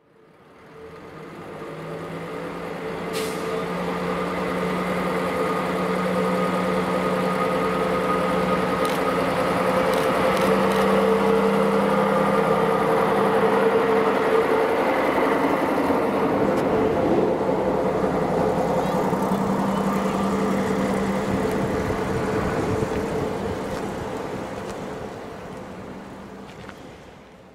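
Diesel engine of a Czech-built class 810 railbus (six-cylinder underfloor diesel) running as the railcar passes close by. It gives a steady, even drone that swells in over the first few seconds and fades away near the end.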